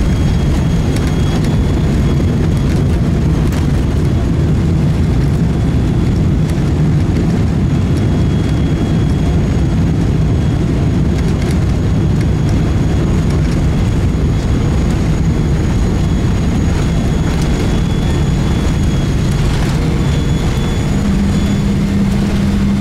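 Steady, loud low roar of an airliner cabin, engines and airflow heard from inside, during the final approach to landing. A steady low hum joins in near the end.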